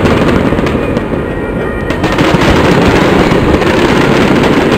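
Fireworks going off in quick succession: a loud, dense, unbroken crackle and popping of many shells and ground fountains at once.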